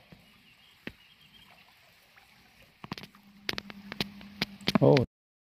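A hooked small fish splashing and thrashing at the water's surface as it is reeled in. It comes as a quick run of sharp splashes and clicks over a low steady hum in the second half. A brief loud voice-like sound follows, and then the sound cuts off abruptly.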